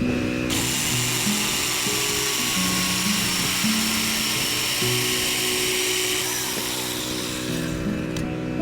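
Background music with a melody, over a power tool running with a steady high-pitched whine from about half a second in until it fades near the end.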